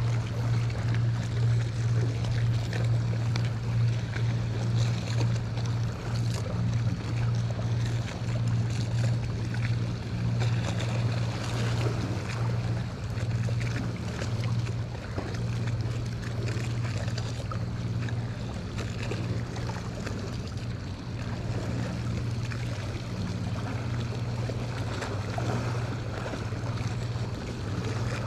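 A steady low hum, like a motor running, over choppy water lapping against a concrete seawall.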